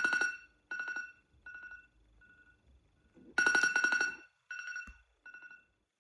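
Phone alarm going off: a rapid pulsing electronic ringtone, twice, each loud burst followed by softer repeats of the same high beeping that fade away.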